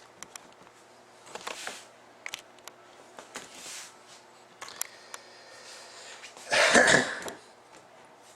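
Scattered light clicks and handling noises, then a man coughs or clears his throat once, loudly, about six and a half seconds in.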